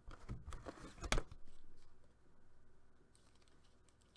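Hands handling trading-card boxes and packaging: a few light taps and crinkles, bunched in the first second or so, the loudest a sharp tap just after the first second.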